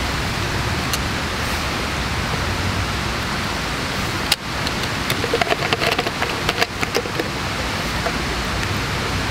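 Wood campfire burning: a steady rushing hiss with scattered small crackles. A cluster of sharp clicks comes about five to seven seconds in.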